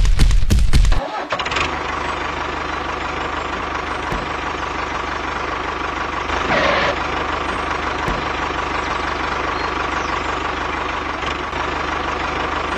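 A loud, rapid knocking that cuts off about a second in, then a motor running steadily with a constant whine and low hum. A brief falling tone sounds over it about halfway through.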